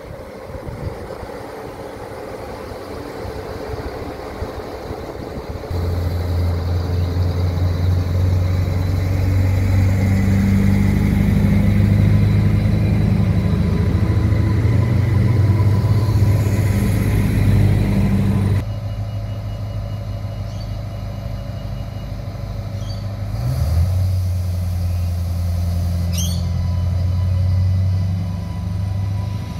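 Adelaide Metro 3000-class diesel railcars: a railcar's engine hums steadily and grows louder as it pulls out along the platform. The sound then changes abruptly to a second railcar's engine humming as it runs in, with a brief high squeal near the end.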